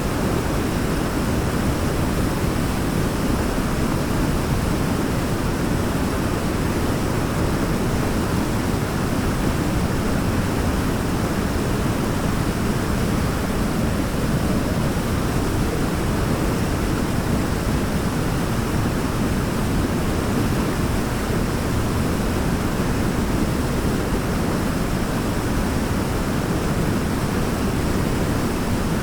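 Waterfall: water falling and splashing in a steady, unbroken rush, heaviest in the low end.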